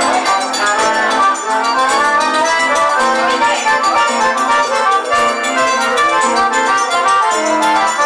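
Live forró band playing, the accordion carrying the melody over strummed acoustic guitar in a steady, repeating dance rhythm.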